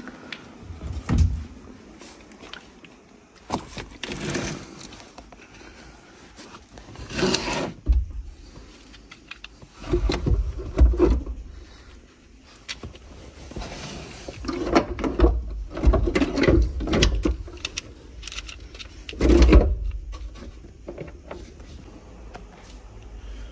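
Clunks, scrapes and thumps of a 12-volt car battery being lifted out of and set into its metal under-floor tray, in irregular bursts with a few heavier thumps, the loudest about nineteen seconds in.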